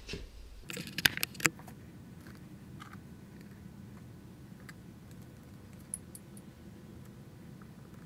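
Metal parts of a bolt-action pen clicking and clinking as they are handled and taken apart, with a quick cluster of sharp clicks about a second in, then a few faint ticks.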